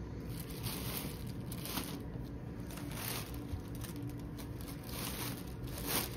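Thin clear plastic wrapper crinkling and rustling as it is handled and pulled back over cardboard packaging, with irregular crackles and the loudest crinkle near the end.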